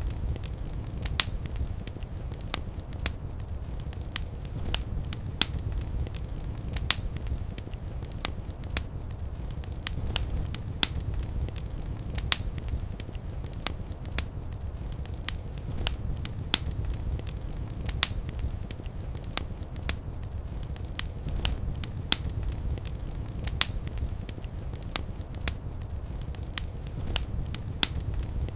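Fireplace fire crackling: frequent, irregular sharp pops and snaps over a steady low rumble of the flames.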